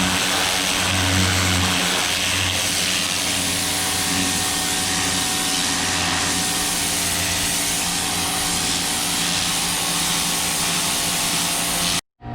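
Ryobi 2000 psi electric pressure washer running, its turbo-nozzle jet spraying with a loud steady hiss over the low hum of the electric motor and pump. It cuts off suddenly near the end.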